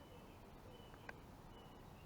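Near silence: faint background noise with a few faint, short, high-pitched chirps.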